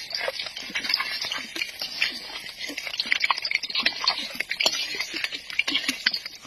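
Hot oil sizzling and popping in a steel wok, with a dense run of irregular crackles.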